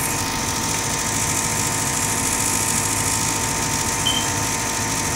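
Gas furnace's draft inducer motor running with a steady mechanical hum as the furnace begins another ignition attempt, with a brief high chirp about four seconds in.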